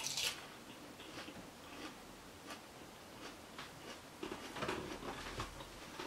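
Quiet eating sounds: a forkful of pesto linguine taken into the mouth and chewed, with scattered small clicks and mouth noises. The loudest burst comes right at the start as the forkful goes in, and a cluster of louder ones about four seconds in.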